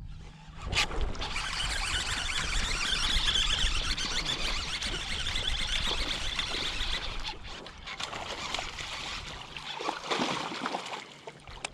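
Water splashing and trickling close to the microphone, opening with a sharp click about a second in and easing off toward the end.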